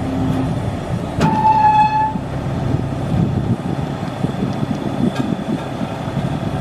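Heavy diesel engines running steadily at idle from the crane and truck. About a second in, a brief horn-like tone with several overtones sounds over the rumble.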